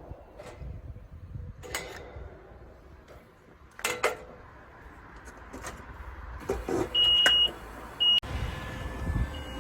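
Scattered sharp knocks and clanks, then two short high-pitched beeps, the first about seven seconds in and the second a second later.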